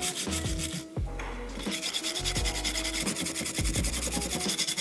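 Rapid abrasive scrubbing of carbon deposits off an engine piston, a fast even rasping. Under it runs background music with a deep bass that drops in pitch on each beat.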